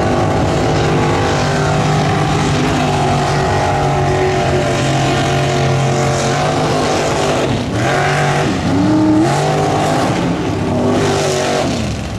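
Lifted 4x4 mega truck's engine running hard at high revs as the truck drives through a mud pond, with its big tyres churning mud and water. The engine's pitch dips and then climbs again about eight seconds in.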